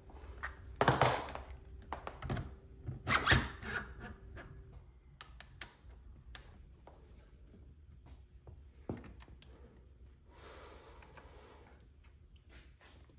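Trim router being seated into the plastic mount of a handheld CNC machine: two loud thunks about a second and about three seconds in, then lighter clicks and knocks. About ten seconds in comes a second or so of rubbing noise.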